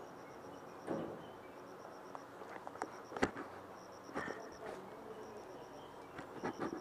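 Insects chirping in short repeating trains of rapid high pulses. Over it, clothing and gear rustle and click as a player shifts behind cover, with one sharp click about three seconds in.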